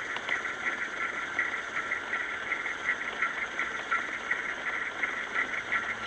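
Snow-grooming machine's engine running steadily while it tows a drag along the trail, with a fast, even flutter to the sound.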